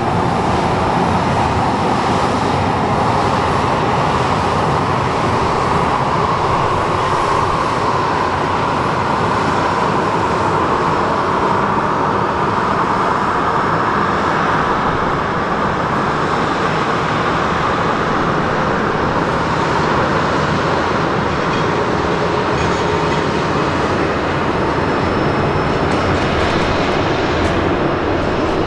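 Boeing 737-800's CFM56-7B turbofan engines running at a steady, loud level, swelling a little midway.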